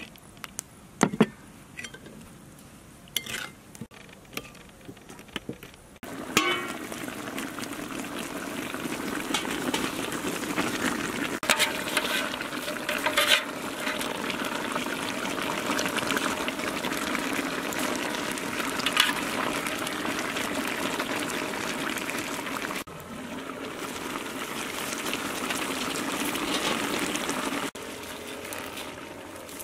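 A few light clicks of a spoon in a ceramic bowl, then from about six seconds in the steady bubbling and hissing of a steaming pot of pork braising at a boil, with a few sharper knocks of a spoon. It drops off shortly before the end.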